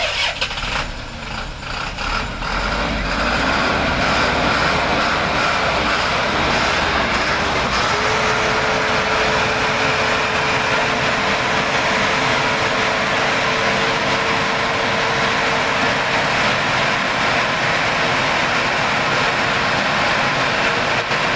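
Diesel engine of a Thaco Forland dump truck running loudly close up. It rises sharply at the start and settles to a high, steady level after about three seconds, with a steady whine joining about eight seconds in.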